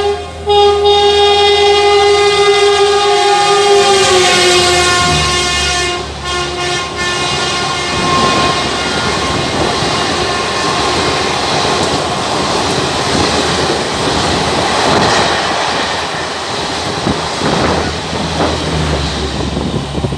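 WAP-7 electric locomotive's horn blasting, with a brief break near the start, its pitch dropping about four seconds in as the locomotive passes at speed. After that, the express coaches rush past with the steady clatter of wheels over rail joints.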